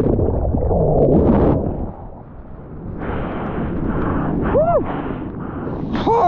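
Breaking surf and rushing water, loudest in the first two seconds, easing briefly, then building again. A short voiced call rises and falls near the end.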